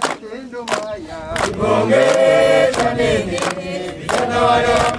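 A group of mostly men's voices singing a chant together in unison, loud, with rhythmic hand claps about every three-quarters of a second.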